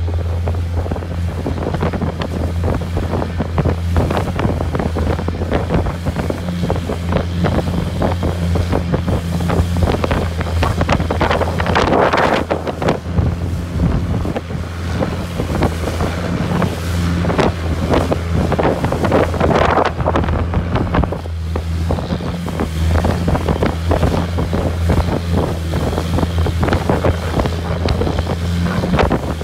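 Longtail boat's engine running at a steady low drone while under way, with wind buffeting the microphone and water rushing along the hull. The rushing swells louder twice, about twelve and twenty seconds in.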